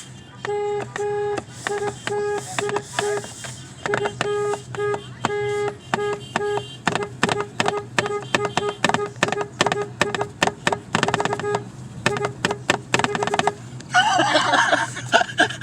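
Car horn honked over and over in rhythmic patterns of short beeps, one steady note each time. The taps get quicker and choppier in the second half before stopping near the end.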